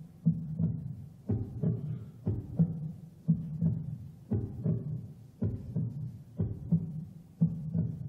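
A low, heartbeat-like double thump in the music score, one pair about every second, keeping a steady slow pulse.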